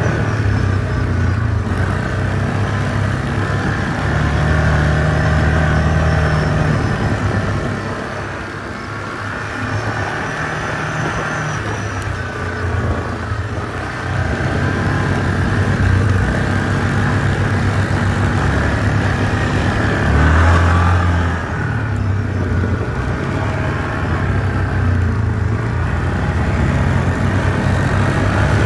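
Yamaha ATV engine running under way on a trail, its note rising and falling as the throttle is worked, with a short burst of revving about two thirds of the way in.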